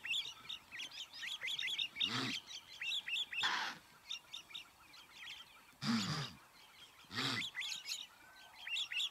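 Many small birds chirping in a dense chorus, with blue wildebeest giving low, nasal grunts and snorts about four times.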